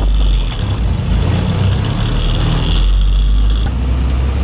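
Container lorry's diesel engine running as the lorry drives along the highway: a steady, loud low rumble with road and wind hiss over it.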